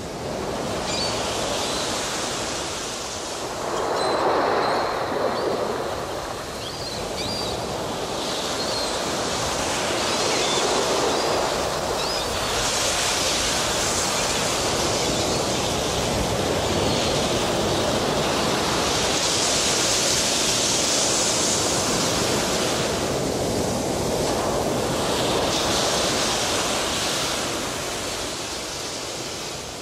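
Ocean surf: waves breaking and washing in as a steady rush that swells and ebbs every few seconds, with a few faint high chirps in the first several seconds.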